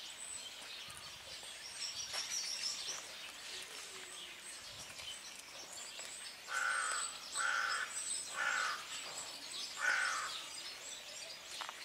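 Outdoor bird calls: four short calls about a second apart in the second half, with fainter high chirping from small birds earlier.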